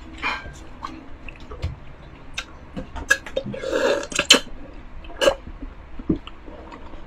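Drinking buko juice from a glass: wet gulps, sips and mouth clicks, with a longer slurp about three and a half seconds in as strips of young coconut meat are sucked in.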